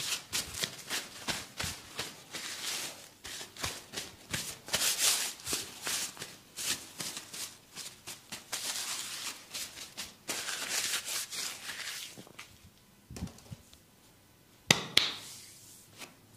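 Hands massaging skin and hair: a quick, irregular run of rubbing strokes and light slaps, thinning out toward the end, with one sharp click near the end.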